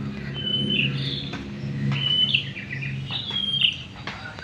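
A songbird chirping in short whistled phrases, three of them about a second apart, over a low steady hum.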